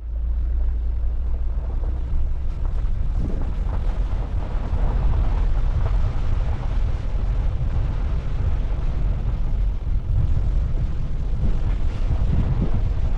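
Wind buffeting the microphone: a steady, heavy low rumble with gusty noise above it.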